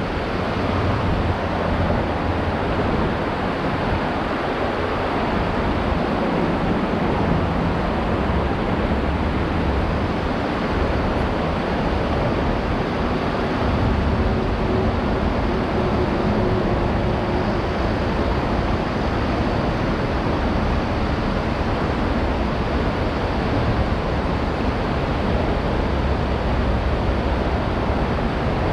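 Steady rushing of fast-flowing river water over shallow rapids, with a low rumble of traffic on the highway bridge overhead.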